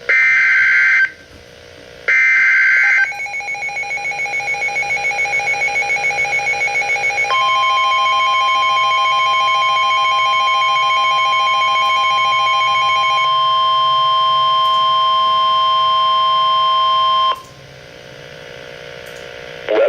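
NOAA Weather Radio emergency alert opening for a flash flood warning: two one-second bursts of digital SAME header tones, then a rapidly pulsing beep for about four seconds. Then the steady 1050 Hz warning alarm tone holds for about ten seconds and cuts off, leaving radio hiss.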